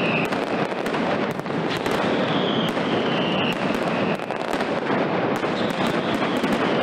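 Mascletà firecracker barrage: a dense, unbroken run of bangs. Whistling fireworks add a high whistle, falling slightly in pitch and lasting about a second, near the start, around the middle and near the end.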